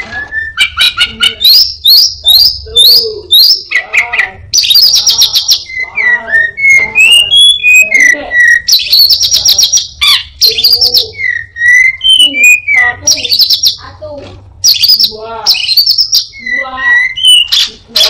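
An Anis binbin thrush singing a loud, continuous, varied song. Fast high trills, sharp clicks and slurred whistles follow one another in quick phrases, and the song is made up of copied calls of other birds.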